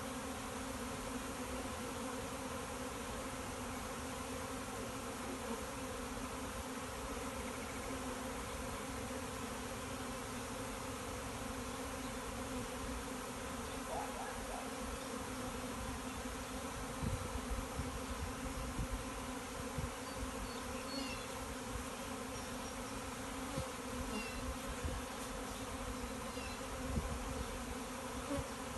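A swarm of several thousand honeybees buzzing in a steady, even hum, with a few low bumps in the second half.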